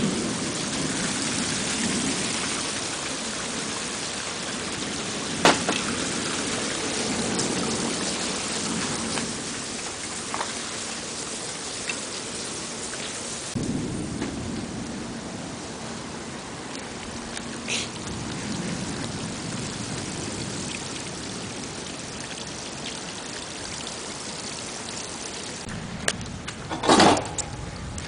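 Steady rain falling in a thunderstorm, a constant hiss with scattered drips and low rumbling of thunder. The hiss eases a little about halfway through, and a brief louder sound comes about a second before the end.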